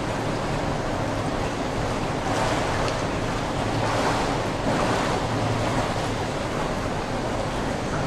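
Water splashing from a swimmer's flutter kick with a kickboard in an indoor pool, over a steady hiss. The splashing swells about two seconds in and again around four to five seconds in.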